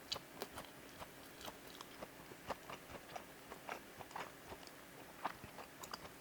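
Close-miked chewing of food: faint, irregular wet mouth clicks, a few each second.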